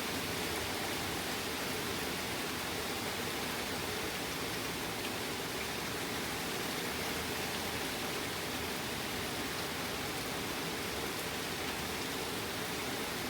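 Steady rain falling in a thunderstorm: an even, unbroken hiss with no thunder.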